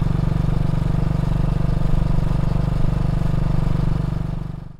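BSA B31's 350cc four-stroke single-cylinder engine running steadily under way, heard from the saddle while riding. It fades out near the end.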